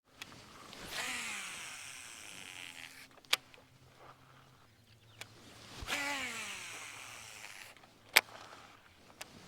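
A baitcasting reel's spool whining out on two casts, its pitch falling steadily as the spool slows, each cast followed by a sharp click as the reel is engaged for the retrieve.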